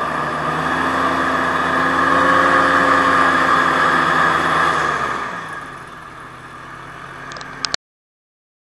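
Aerocruiser SA-1100 hovercraft's engine running loudly and steadily, then dying down about five seconds in as the craft is throttled back on the grass bank. Two short clicks near the end, then the sound cuts off suddenly.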